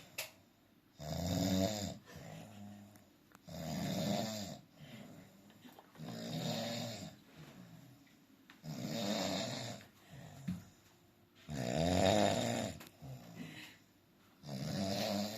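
A man snoring, one long snore about every two and a half seconds, six in all.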